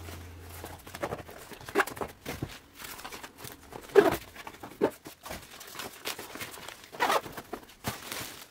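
IKEA fabric storage boxes being handled and opened out, with plastic packaging rustling: scattered rustles and soft knocks, the loudest about four seconds in.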